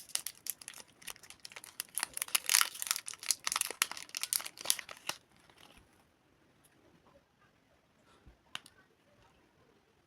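Candy wrapper crinkling and tearing as a sweet is unwrapped: a dense run of crackles for about five seconds, then only a few faint clicks.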